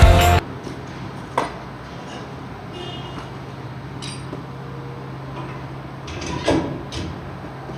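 Music cuts off about half a second in. After that, a few metallic clanks and knocks from tools on a truck's wheel hub during brake work, the loudest about six and a half seconds in, over a steady low hum.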